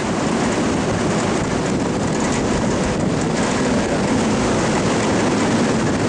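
Strong wind blowing across the microphone on a ferry's open deck: a steady, loud rushing noise.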